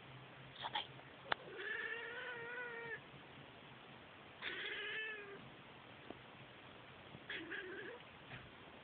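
Domestic cat meowing: two long, drawn-out, wavering meows, then a shorter one near the end. A sharp click comes just before the first meow.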